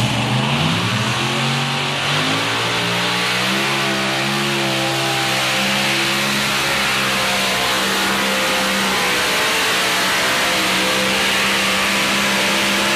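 Pulling tractor's engine running at full power as it drags a weight-transfer sled down the track, its pitch climbing over the first few seconds and then holding steady under load.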